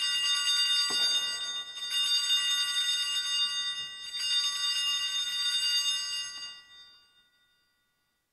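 Altar bells rung three times in quick succession at the elevation of the consecrated host, a bright jingling ring of several high tones that fades away about seven seconds in.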